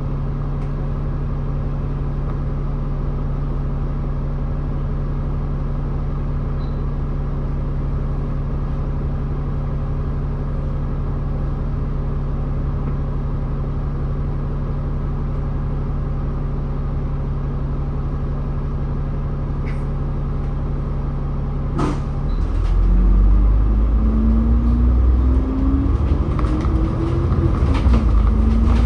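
Bus engine idling steadily. After about twenty seconds there is a sharp click, and the engine revs up as the bus pulls away, its pitch rising, dropping once at a gear change, then rising again.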